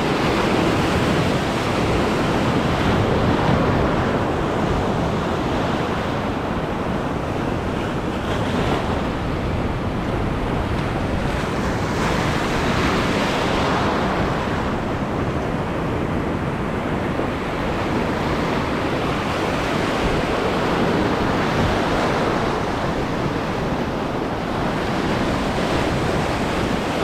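Surf washing over a shallow reef edge, a steady rush of water that swells and eases every few seconds, with wind buffeting the microphone.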